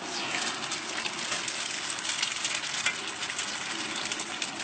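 Eggs frying in a pool of hot oil on a large flat griddle: a steady sizzle with many small crackling pops.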